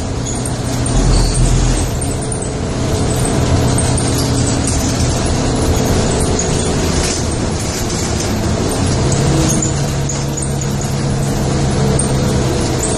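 Moving road vehicle heard from inside the cabin: steady engine hum and road noise, swelling briefly with a deeper rumble about a second in.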